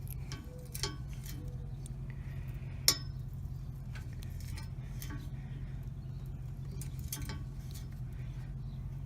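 Thread tap being turned by hand in a steel motorcycle foot-peg mount, giving scattered metallic clicks and ticks as it cuts and is turned back, with one sharper click about three seconds in. A steady low hum runs underneath.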